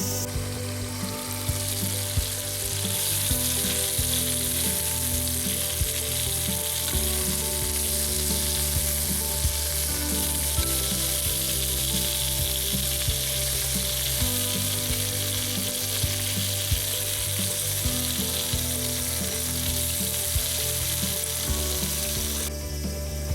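Food frying with a steady sizzle, which stops suddenly shortly before the end, over background music.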